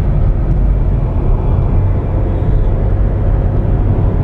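Steady road and engine rumble from a car that is being driven, heard from inside the cabin.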